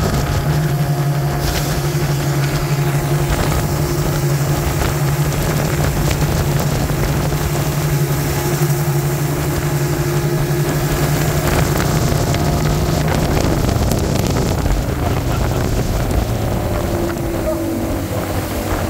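Tow boat's engine running steadily at speed, a constant low hum with rushing water and wind on the microphone, a little quieter near the end.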